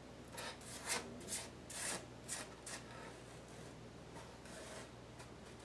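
Fingers rubbing and brushing over a paper label glued to the wooden bottom of a record player case: a few short, faint scuffs in the first three seconds, then a weaker one near the end.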